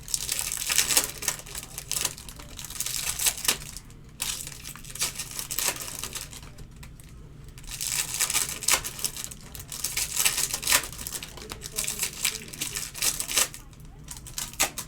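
Foil trading-card pack wrappers crinkling and tearing as the packs are opened. It comes in clusters of crackly rustling with short quieter pauses between them.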